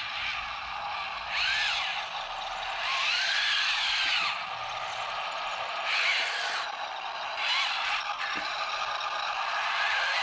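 Small electric drive motors and gearboxes of 1/30-scale Heng Long RC toy tanks whining in repeated bursts, the pitch rising and falling as the tanks move off and stop, over a steady hiss.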